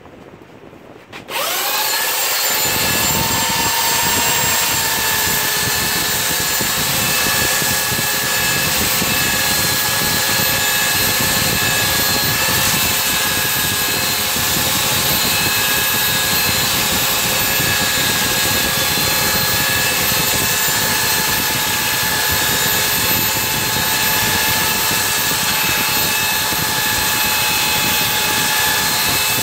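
Handheld electric power tool switched on about a second in, then running steadily with a high motor whine as it is worked along the edges of a clamped stack of wooden boat frames to clean them up.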